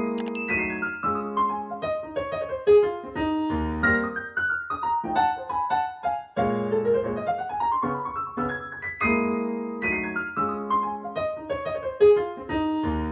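Solo piano music played back through a pair of 1990s Mission 701 bookshelf speakers: fast runs of notes sweeping down and up over struck chords, with a brief break about six seconds in.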